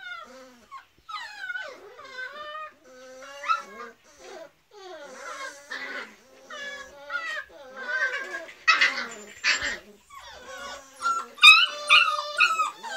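A litter of beagle puppies whining and yelping, many short high-pitched calls overlapping and sliding in pitch, with the loudest, sharpest yelps near the end.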